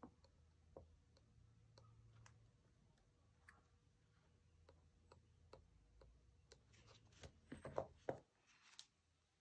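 Near silence with faint, scattered light taps and clicks from a soldering iron tip tapping solder on a stained-glass piece, a few coming closer together near the end.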